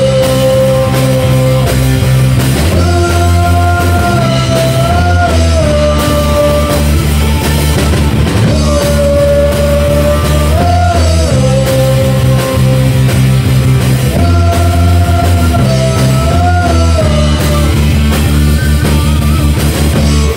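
Rock band playing at full volume: electric guitars, bass and a drum kit under a held melodic line that bends up and down, repeating a phrase about every six seconds. The band stops abruptly at the end.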